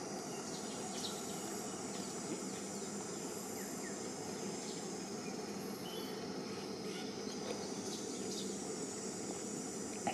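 Steady outdoor forest ambience: a constant hiss with a high insect drone, and a few faint short chirps scattered through it.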